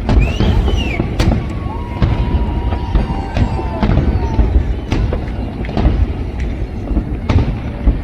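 Large aerial fireworks bursting one after another: sharp bangs over a continuous low rumble, with a couple of whistling tones in the first few seconds.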